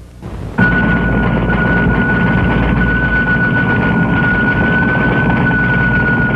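Steady whirring, rumbling machine noise with one steady high tone over it, starting about half a second in: the sound of 1970s computer equipment such as tape drives running.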